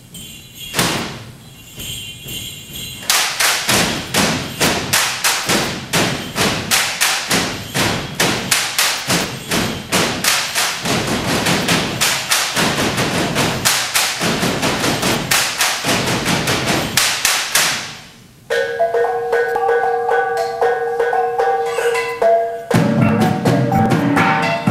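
Bamboo poles clapped together and knocked on the stage floor in a steady rhythm of sharp clacks, building up in the first seconds and stopping suddenly. Then kulintang gongs are played in a ringing melody, with deeper beats joining near the end.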